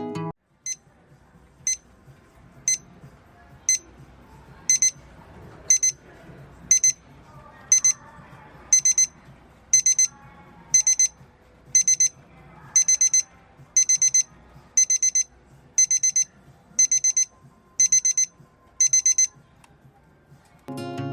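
SEIKO SQ782B digital alarm clock sounding its high-pitched electronic alarm, once a second. It starts as single short beeps, doubles after about four seconds, then grows into longer rapid bursts, and stops near the end.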